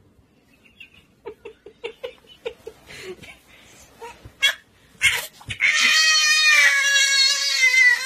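A sharp knock about five seconds in, then an infant's loud, long, high-pitched wail whose pitch wavers up and down.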